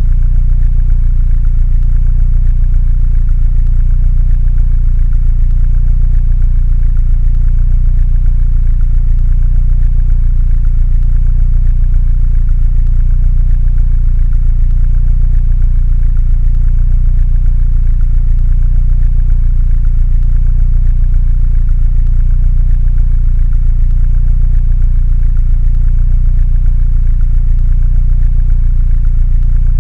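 Mini Cooper engine idling steadily, a deep, even hum with no change in speed.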